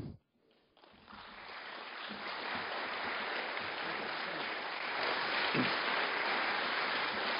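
Audience applause, coming in about a second in and building over the next two seconds, then holding steady.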